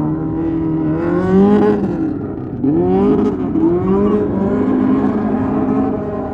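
Car engine revving hard while drifting, its pitch repeatedly climbing and dropping, with sharp rises about a second in and again near three seconds.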